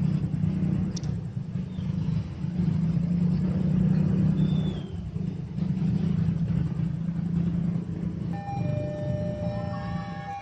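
Low rumble and drone of a passing train, swelling and easing over several seconds. Near the end, several steady high tones join in one after another.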